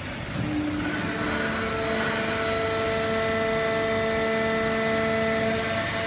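Fully automatic horizontal hydraulic waste-paper baler running: steady machine noise with a whine of several held tones that sets in about a second in.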